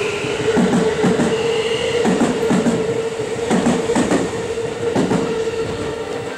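JR West 323 series electric train pulling out past the platform, its wheels clattering over rail joints in pairs as each car goes by, over a steady whine. The sound fades toward the end as the train moves away.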